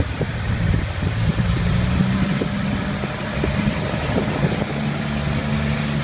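An engine runs steadily under a loud rushing noise, with a faint high whine slowly rising in pitch.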